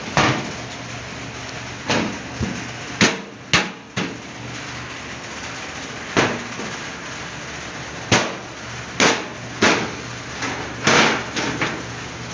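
About a dozen sharp, irregularly spaced knocks and clanks on the sheet-metal casing of an air-conditioner unit as it is handled and worked on, over a faint steady hum.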